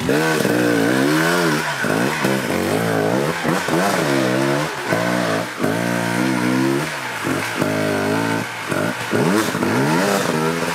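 GasGas enduro dirt bike engine revved hard in short bursts again and again, pitch rising and dropping back each time, as the bike claws its way up a steep rocky climb.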